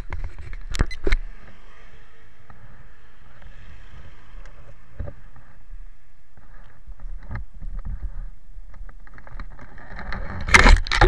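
Handling noise from a body-worn camera while its wearer walks: two sharp knocks about a second in, then soft scattered footstep-like clicks over a low steady hum, and a loud rustling burst near the end.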